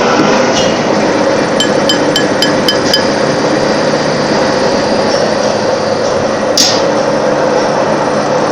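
Thread-rolling machine running steadily, rolling an M16 thread. A quick run of about six light ringing metallic clinks comes a second and a half in, and a single sharp knock comes later.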